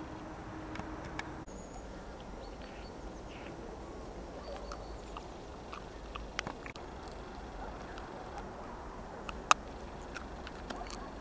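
Open-air ambience: a steady low hiss with a few faint high chirps and scattered small clicks, and one sharp click about nine and a half seconds in.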